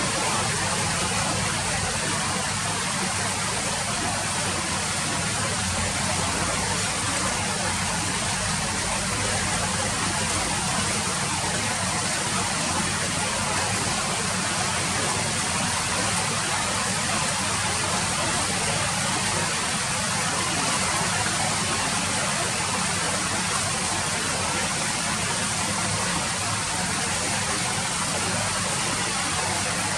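Steady rain falling, an even hiss with no single drops or gusts standing out.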